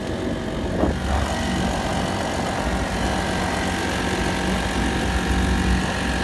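Honda GX35 35cc four-stroke single-cylinder outboard engine running steadily, driving a small pontoon boat at cruising speed.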